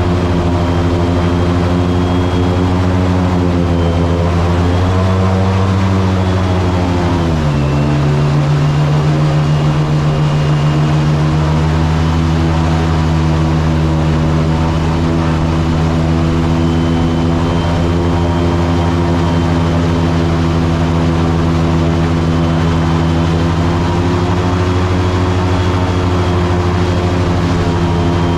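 Boat motor running at speed, a steady engine note whose pitch drops about seven seconds in and then holds steady.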